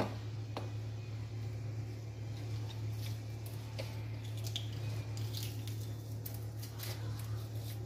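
Garlic being crushed in a metal garlic press: soft squishing with small scattered clicks of the press from about three seconds in, over a steady low hum.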